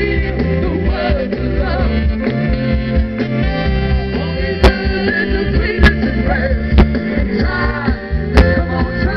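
Live soul-pop band playing, with singing over drums and bass. A few sharp, loud drum hits stand out in the second half.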